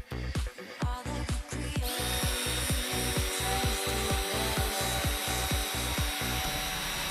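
Dance music with a steady kick-drum beat. About two seconds in, a power-tool motor, an electric drill or mixer, starts suddenly and runs steadily over the music with a faint whine, blending the two layers of homemade liquid laundry soap.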